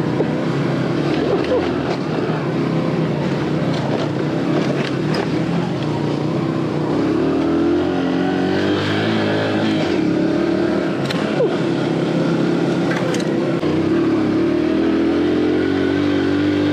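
Aveta Ranger Cub Cross 115's single-cylinder four-stroke engine running steadily as the bike is ridden. The engine speed rises and falls with the throttle, and there are a few sharp knocks.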